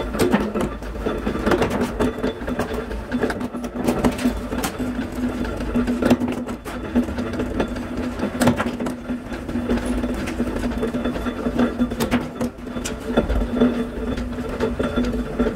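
A sheet-metal bending press (press brake) running with a steady motor hum while stainless steel sheet is bent, with scattered metallic clanks and knocks.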